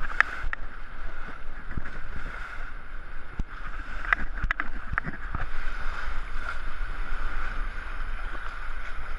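Wind buffeting the microphone over water rushing and splashing along a sailing trimaran's hull and float as it runs through choppy seas, with a few short knocks about four to five seconds in.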